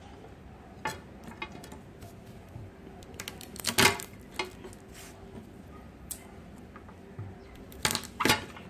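Kitchen utensils and dishes knocking and clinking as they are handled, a scatter of light clatters with the loudest about four seconds in and two more near the end.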